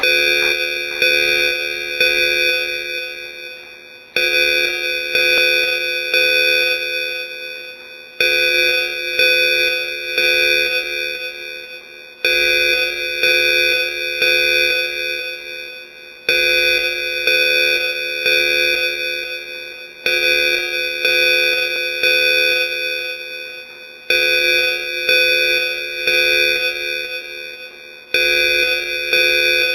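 Evacuation alarm chime: three bell-like strokes about a second apart that ring out and fade, the pattern repeating every four seconds.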